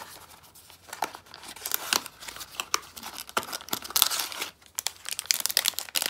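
Hands opening a small cardboard box and pulling out an item sealed in a plastic bag: cardboard scraping and clicking, and plastic packaging crinkling, in irregular handling noises with a denser rustle about four seconds in.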